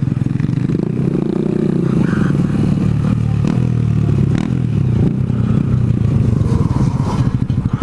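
Honda Grom's small single-cylinder engine running hard at speed, its revs falling and rising a few times.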